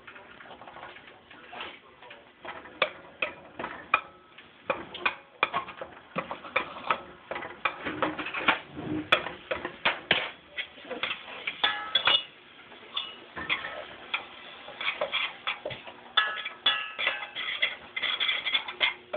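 Metal spoon stirring butter and flour into a roux in a stainless-steel saucepan, scraping and clinking against the pot in quick, irregular taps.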